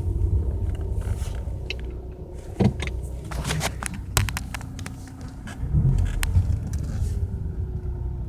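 2015 Ford Mustang's 2.3-litre EcoBoost turbocharged four-cylinder engine running, a steady low rumble with a faint hum over it, swelling about six seconds in, with a few sharp clicks around the middle. The owner hears a vacuum-cleaner-like noise from it when accelerating and on cold idle.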